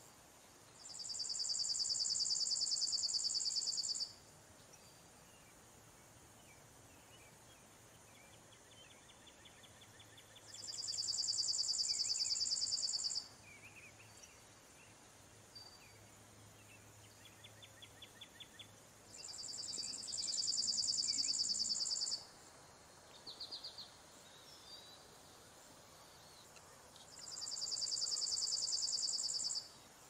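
Chipping sparrow singing: four long, rapid trills on one steady pitch, each about three seconds long, spaced roughly eight seconds apart. Fainter, shorter trills come between them.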